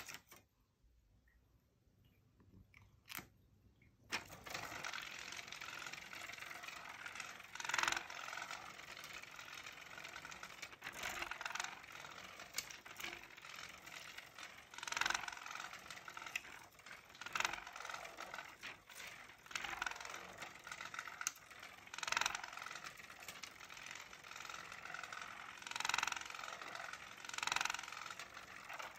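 Small motor of an electric spinning-butterfly cat toy starting about four seconds in and whirring steadily, louder every few seconds as the butterfly swings round; one click just before it starts.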